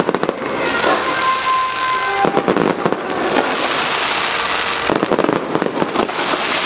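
Aerial fireworks display: shells bursting in quick succession, with a continuous crackling from the falling stars between the bangs.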